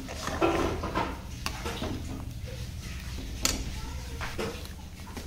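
A perforated steel spoon stirring and scraping through chicken curry in a metal kadai, with sharp clinks of metal on the pan about a second and a half in and again about three and a half seconds in, over a low steady hum.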